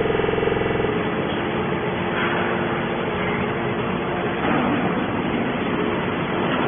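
Hydraulic scrap-metal baler running while pressing stainless steel. A steady hum with a clear pitch for about the first second changes to a dense, rough machine noise that holds steady.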